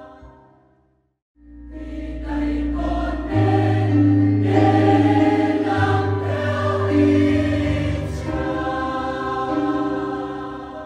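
A mixed choir holds its final sung chord, which fades out within the first second. After a brief silence, closing music comes in with a deep bass note and swells.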